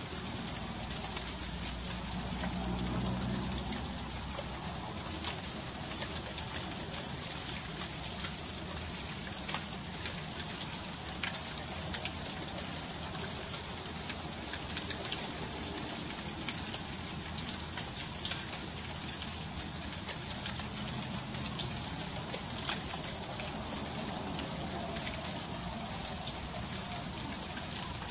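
Freezing rain falling steadily: a constant hiss crowded with fine, quick ticks of drops and ice striking surfaces.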